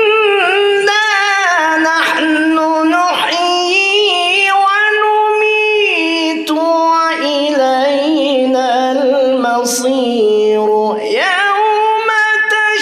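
A man's solo melodic Quran recitation (tilawah): one long, richly ornamented melismatic phrase in a high, clear voice, the melody stepping gradually down in pitch. A short break comes about eleven seconds in, then a new phrase rises near the end.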